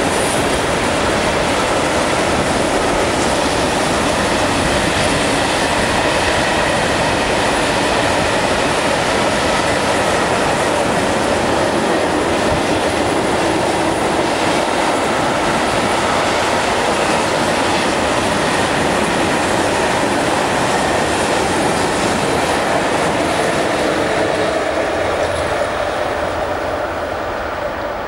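Freight train of mixed wagons rolling past at close range: a steady, loud noise of steel wheels running on the rails, easing off slightly near the end.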